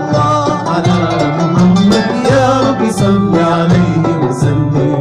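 Live ensemble music in an Andalusi-influenced style: several instruments playing melodic lines that glide in pitch over a moving lower part.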